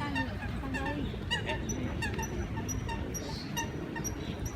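A flock of birds crowding in to be fed bread, calling over and over in short calls about every half second, with a brief high chirp recurring among them.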